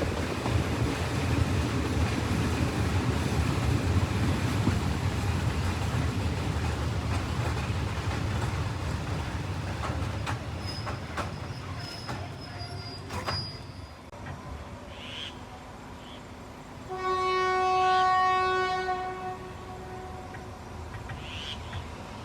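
Train running along the track, its steady noise fading over about twelve seconds with a few sharp clicks from the rails. About seventeen seconds in, the train's horn sounds one long blast of roughly two seconds.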